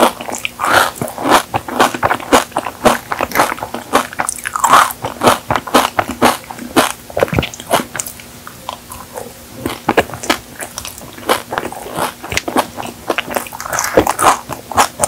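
Close-miked biting and chewing of a Dubai chocolate cake: a dense run of crisp crunches, a few each second, from the toasted kadaif shreds in its pistachio layer.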